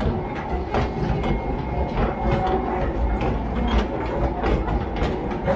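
Narrow-gauge (762 mm) sugarcane train of the Huwei sugar factory rolling past, its wagons clattering with repeated clicks and knocks over a steady low rumble.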